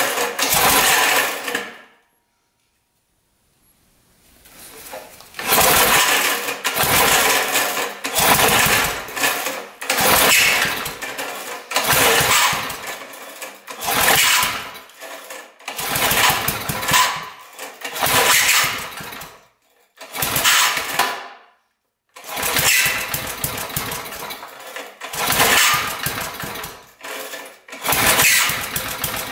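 5 hp Briggs & Stratton single-cylinder engine being pull-started over and over by its recoil starter, a dozen or so pulls about every two seconds, the engine sputtering on each pull without catching. The engine has been primed with a little gas poured into it.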